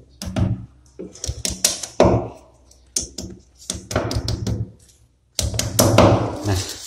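Small hammer tapping plastic wall plugs into drilled holes in a masonry wall: quick runs of sharp knocks in several bursts, with short pauses between.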